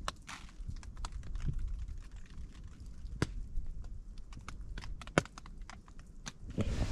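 Drops of rain and wet snow tapping on a camping tarp overhead, heard from underneath: irregular sharp taps, a few a second, some louder than others.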